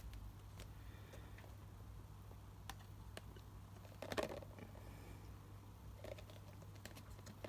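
Faint scattered clicks and taps of a plastic container and its lid being handled, with a small cluster of taps about four seconds in, over a low steady hum.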